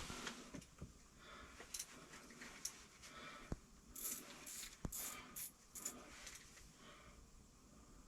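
Quiet room tone with faint, scattered rustles and ticks and two sharp clicks, one about three and a half seconds in and one near five seconds.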